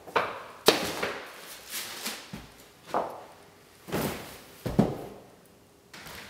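Footsteps and irregular knocks and thuds, about seven over five seconds, some with a short ring after them.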